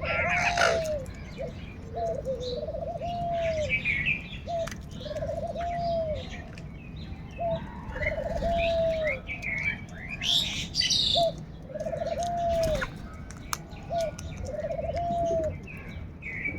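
A bird calling in a repeated low, arched cooing phrase, a short note followed by a longer one, about every two seconds, with chirps from other birds in the background.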